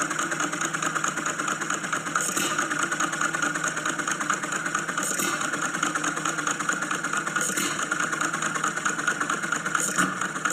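A machine or engine running steadily, with a brief hiss recurring about every two and a half seconds.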